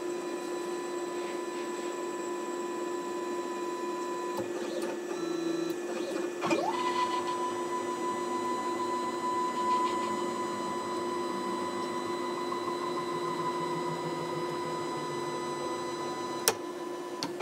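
Raptorex Mini desktop CNC router's stepper motors whining steadily as the machine homes its axes. The whine changes pitch about four and six and a half seconds in as the moves change, and there is a short click near the end.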